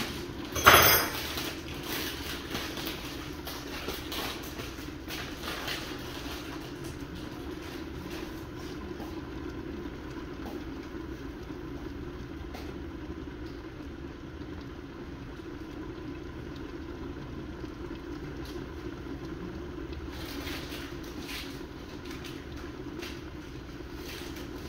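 Curry chicken simmering in a covered stainless-steel pot with a glass lid: faint bubbling and crackling over a steady low hum. A sharp knock comes about a second in.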